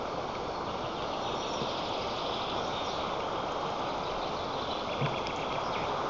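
Wind blowing over the eagle-nest camera's microphone, a steady rushing noise, with a single brief thump about five seconds in.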